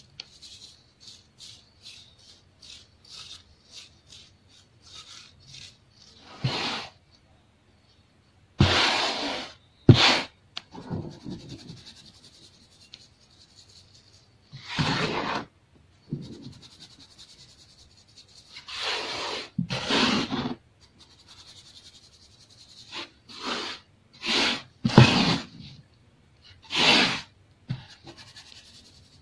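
Fingers rubbing and crushing clumps of baking soda against a stainless-steel mesh sieve, making gritty crunching scrapes. At first there are light quick scratches, about two a second. After that come separate longer, louder strokes every few seconds.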